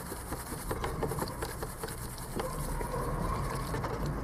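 Soft brush scrubbing a water-corroded power steering control module in a plastic tub of warm soapy water: irregular wet rubbing and swishing with many small clicks and knocks as the board shifts against the tub.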